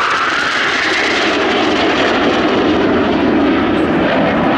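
Canadair NF-5 jet fighter's twin General Electric J85 turbojets, loud and steady as it flies past, the pitch of the jet noise falling through the first seconds.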